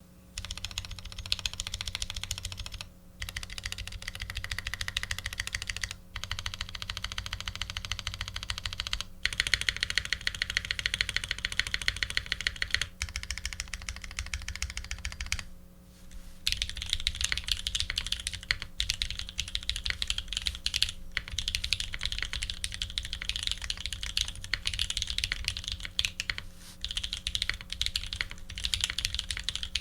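Fast, continuous typing on an F1-8X custom mechanical keyboard fitted with New Holy Panda tactile switches (Krytox 105 lube, TX films, 65 g springs), an aluminium plate and Leopold PBT keycaps: a dense patter of keystrokes with a few short pauses, the longest about a second.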